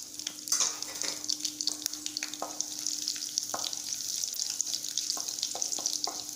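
Mustard and cumin seeds with dried red chillies sizzling in hot oil in a kadai, the mustard seeds crackling with many sharp pops, while a wooden spatula stirs them. The popping is the sign that the tempering is done.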